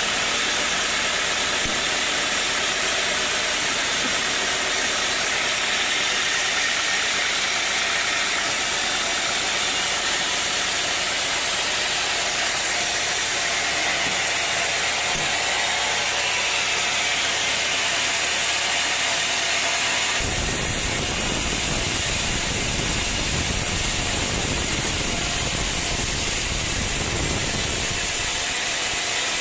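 Sawmill machinery running: a steady engine-like drone under a loud hiss. About twenty seconds in, it changes abruptly to a rougher sound with more low rumble.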